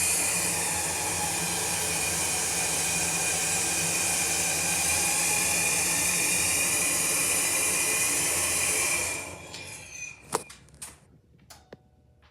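KONE hydraulic elevator power unit hissing steadily with a low hum and a high whine as the car lowers, oil running back through the valve to the tank. It stops about nine seconds in, followed by a few sharp clicks.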